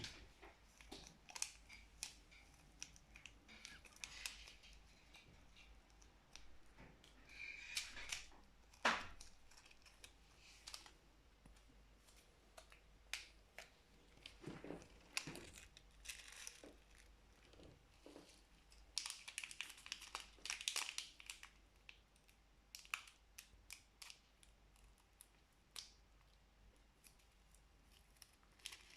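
Packaging being handled during a slime unboxing: scattered soft clicks and crinkling of plastic, with louder bursts of crinkling and rustling about eight seconds in and again about two-thirds of the way through, and one sharp click near the first burst.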